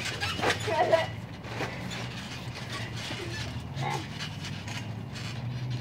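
Trampoline mat and springs thumping and creaking irregularly as people wrestle and fall on it, with short vocal cries about half a second to a second in, over a steady low hum.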